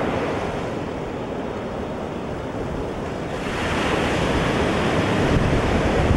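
Ocean surf washing ashore, with wind buffeting the microphone as a low, fluttering rumble; the surf swells louder a little past halfway.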